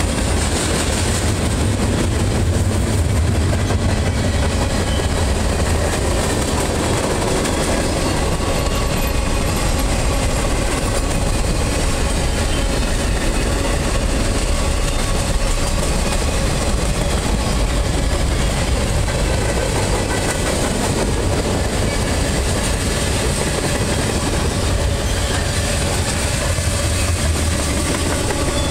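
Freight cars rolling past close by: steel wheels running on the rails, a steady, loud, continuous noise.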